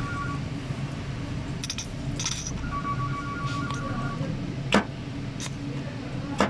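Clicks and clacks of a Fiat Ducato clutch slave cylinder with built-in release bearing being worked by hand, its piston pushed to test the new rubber cup seal. Two sharper knocks come in the second half, over a steady low hum.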